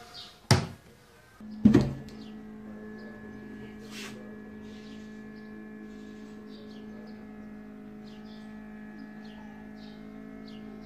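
Two sharp knocks about a second apart, then a steady electrical hum that starts with the second knock and runs on: a small electric device, such as the incubator's fan or heater, switched on.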